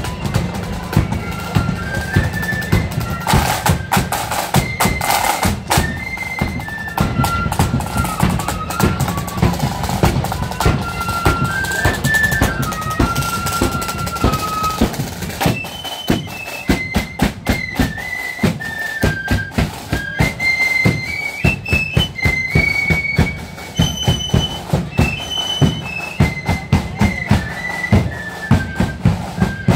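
Marching flute band playing a tune: flutes carry a stepping, high melody over drums beating a steady march rhythm.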